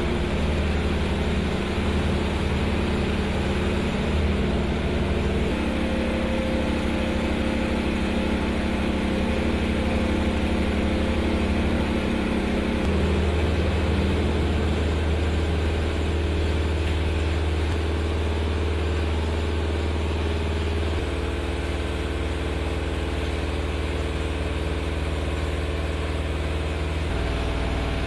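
Engine idling steadily with a low hum; the pitch of the hum jumps abruptly three or four times.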